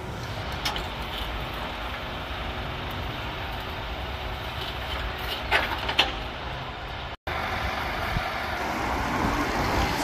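Lorry engine running steadily to drive a truck-mounted hydraulic loader crane as it hoists a sheep carcass on a chain, with a few sharp knocks about halfway through. The sound cuts out for an instant about seven seconds in, then the engine noise carries on.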